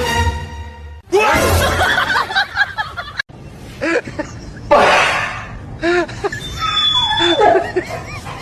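Short bursts of human laughter, as a string of brief repeated calls, with a short noisy burst about halfway through.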